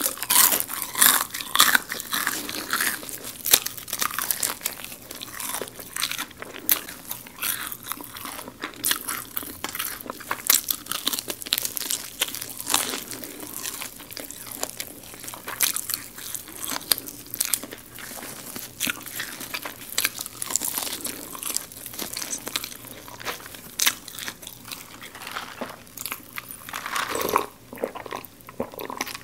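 Close-miked crunching and chewing of crispy garlic fried chicken, with sharp, irregular crunches of the crispy coating throughout.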